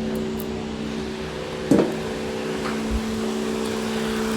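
Toyota Avalon V6 engine idling with an even, steady hum, its misfire now cured and running smooth. One brief louder sound just under two seconds in.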